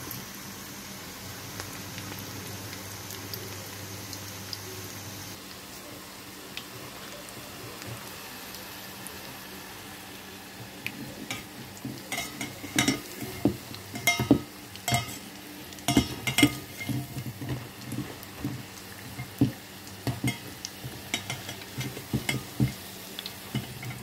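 Cauliflower pakoda frying in hot sunflower oil, a steady sizzle. From about halfway through, a metal utensil repeatedly knocks and scrapes against the pan as the pieces are stirred and turned.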